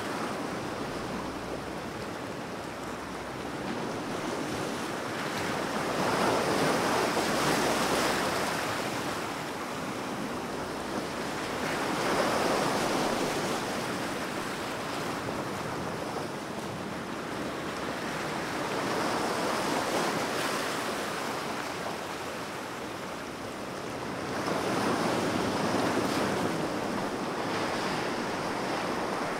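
Ocean surf, a continuous wash of waves that swells louder and eases off four times, about every six seconds.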